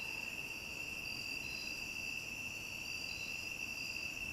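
Crickets singing in a steady night chorus: one continuous high-pitched trill with fainter, higher trills over it.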